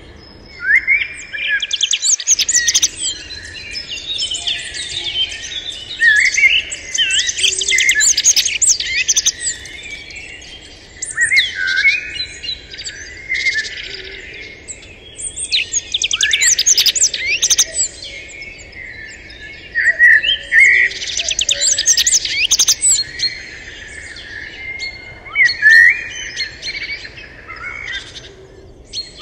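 Wild birds singing and chirping: fast, high, warbling phrases of rapid chirps, each lasting one to three seconds, repeated over and over with short pauses between them.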